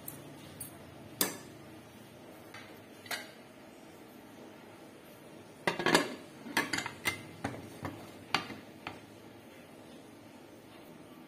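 Metal spoon knocking and scraping against a cooking pot in scattered clinks, with a quick flurry of knocks in the middle.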